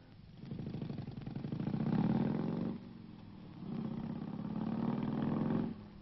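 A motor vehicle engine running and revved up twice. The first rev climbs to a peak about two seconds in, the second is held for about two seconds, and each drops back suddenly to idle.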